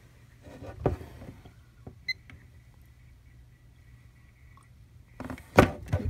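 Plastic clicks and knocks from handling a Kill A Watt EZ plug-in power meter and pressing its buttons, with two sharp knocks, the louder near the end. A faint steady low hum runs underneath, and a short high beep sounds about two seconds in.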